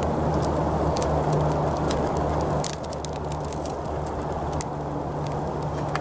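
Wood campfire crackling, with scattered sharp pops, over a steady low rumbling hum.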